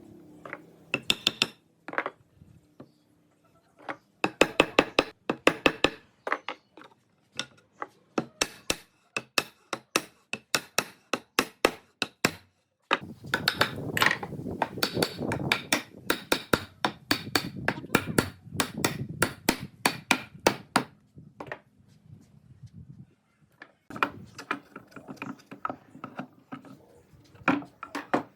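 Hammer driving nails into wood: several runs of quick blows, about three a second, with short pauses between them.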